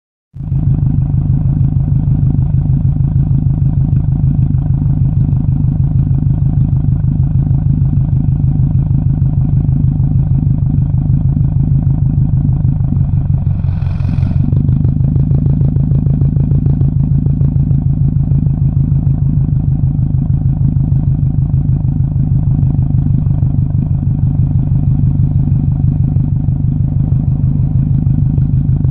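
Exhaust of a 2007 Subaru WRX's turbocharged flat-four running at a steady speed, with an even pulsing beat; the owner suspects a misfire in it. A brief hiss about 14 seconds in.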